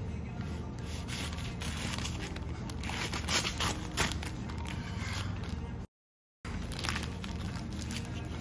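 A chef's knife sawing through a sandwich wrapped in brown paper and plastic film on a wooden cutting board: crackling, scraping and crinkling strokes, loudest about three to four seconds in. The sound drops out to silence for a moment just before six seconds.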